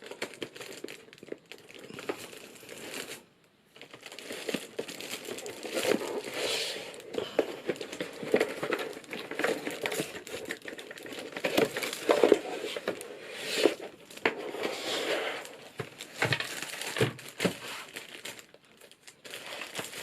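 Plastic bag wrapping crinkling and rustling as the keyboard is handled and unwrapped, in irregular bursts of crackly noise with many small clicks. There is a brief pause about three seconds in.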